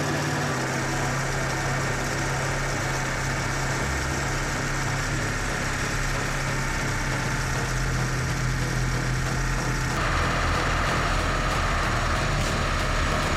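Excavator engine running steadily under work, with a noisy mechanical hum; the tone changes abruptly about ten seconds in.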